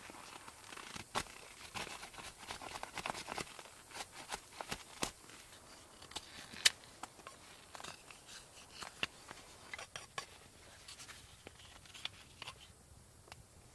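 Knife whittling a piece of wood: irregular short scraping cuts and sharp clicks as shavings come off, with one louder click about halfway through and a brief pause near the end.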